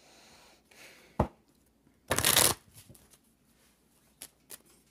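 Tarot cards being handled: a sharp tap about a second in, a short swish of cards sliding about a second later, the loudest sound, then a few light clicks near the end.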